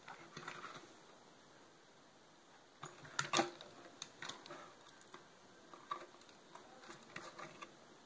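Soft scattered clicks and knocks from a concertina being handled close to the microphone, with a louder cluster of clicks about three seconds in; no notes are played.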